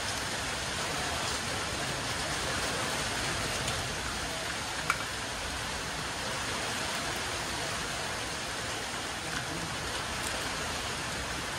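Heavy rain falling steadily, an even hiss of rain on surfaces. A single sharp click about five seconds in.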